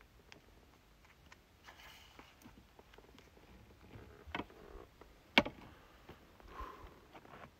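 Faint rustling and scattered small clicks of gear being handled, with one sharp click about five and a half seconds in.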